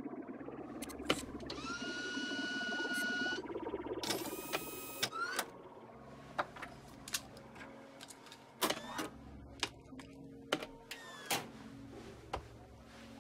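Sci-fi sound effects: a pitched electronic whir that rises and holds, a quick sweeping tone, then a string of sharp irregular clicks and taps over a low steady hum.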